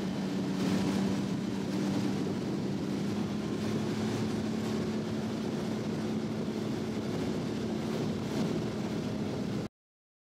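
Motorboat engine running steadily at a constant pitch, mixed with wind and water noise. The sound cuts off abruptly to silence near the end.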